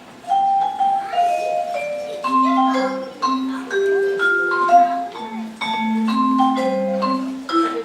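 Instrumental music: a quick melody of short struck notes over a lower line of longer notes.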